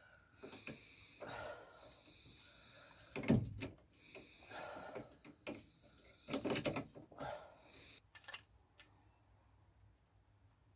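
Brake caliper being handled and twisted round to thread it onto its brake pipe: scattered knocks and clunks of the metal caliper and fittings, the loudest two about three seconds in and again about six and a half seconds in.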